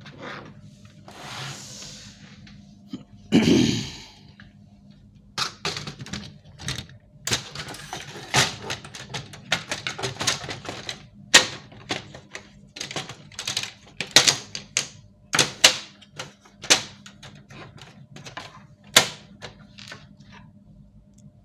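Hands working on the plastic parts of an HP LaserJet Pro 400 M401dn printer: a long run of sharp clicks, taps and knocks, with a rustling scrape about a second in and a heavier thud about three and a half seconds in.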